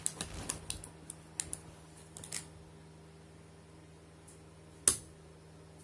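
Handling noise: scattered light clicks and taps for the first couple of seconds, then one sharp knock about five seconds in, over a faint steady hum.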